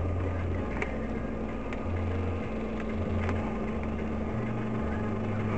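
Steady noise inside a moving car's cabin, with a low hum that shifts in pitch every second or so and a few faint ticks.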